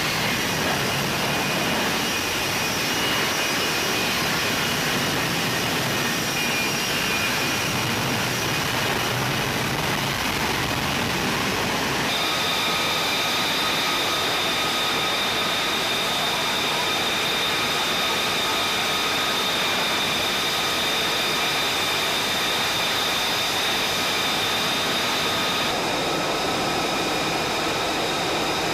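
F-35B Lightning II jet noise: first the dense, loud rush of the jet hovering for a vertical landing, its F135 engine and lift fan running. About twelve seconds in it switches abruptly to the jet running on deck, a steady noise with a high, even whine.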